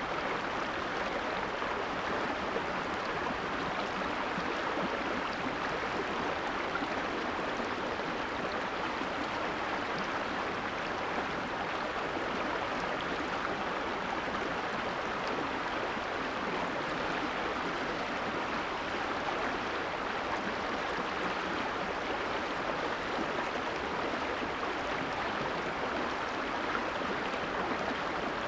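Shallow, fast-flowing creek rippling over stones right at the microphone: a steady, even rush of water.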